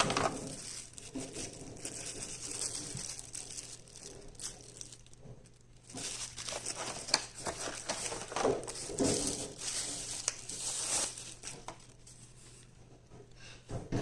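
Packaging being handled and opened: irregular crinkling and rustling, with a couple of short lulls.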